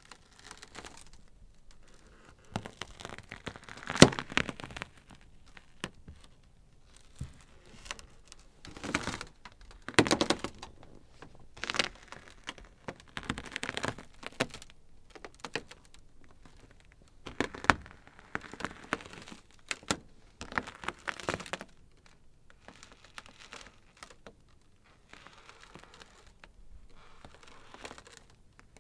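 Ice crackling: irregular clusters of sharp cracks and snaps with short quiet gaps between them, the loudest single crack about four seconds in.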